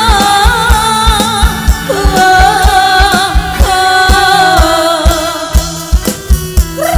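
Khmer romvong dance song played live by an electric band: a woman sings held, wavering notes over a steady kick-drum beat of about two beats a second, with bass guitar.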